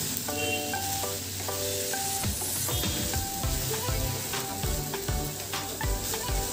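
Chopped onions, tomatoes and cashews sizzling in oil in a pan while a wooden spatula stirs them, scraping the pan in repeated strokes from about two seconds in. Light background music with short plucked notes plays over it.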